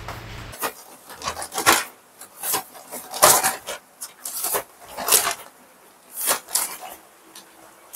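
Objects being handled at a kitchen counter: a string of short, irregular rustling and scraping noises. A steady low hum stops about half a second in.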